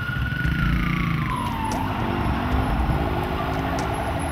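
Police siren wailing: its tone falls in pitch between about half a second and two seconds in, then carries on as a lower pulsing tone over the low running of a vehicle engine.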